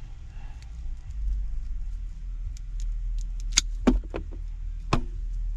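Hand cable cutters working through a thick copper power cable: a few sharp metallic clicks and snaps in the second half, over a steady low rumble that swells about a second in.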